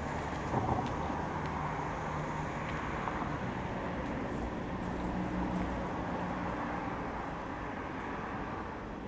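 Street traffic: a steady engine and tyre rumble that swells slightly midway and fades near the end.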